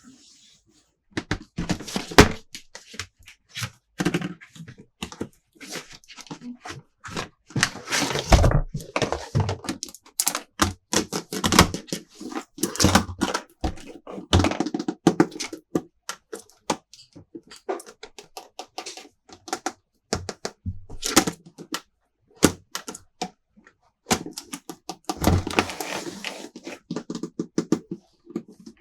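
Plastic toy playset pieces being handled, tapped and set down: a run of irregular small clicks and taps, with a couple of brief rustles.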